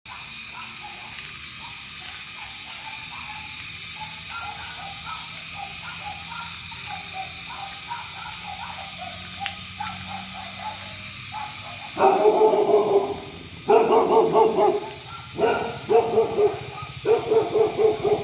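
Dog whimpering and whining over the steady hiss of rain: faint, short wavering whimpers at first, then about two-thirds of the way in, loud drawn-out quavering whines in four stretches of a second or so each.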